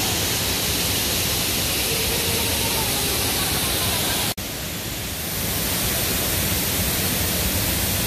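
Waterfall of Tinker's Creek pouring over a rock ledge: a steady, full rush of falling water. It cuts out for an instant about four seconds in, then comes back a little quieter before building again.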